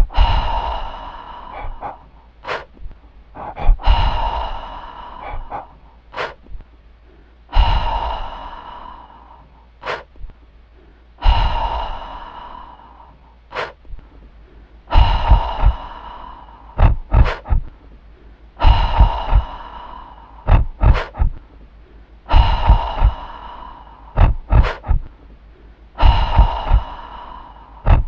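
Sound-design soundtrack looping about every four seconds: a ringing tone that fades over a couple of seconds, then a few short, sharp breath-like gasps.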